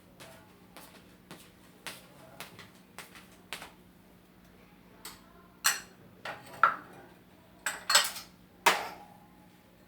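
Dishes and cutlery clinking and knocking: a run of light taps, then several louder, sharper clinks that ring briefly in the last few seconds.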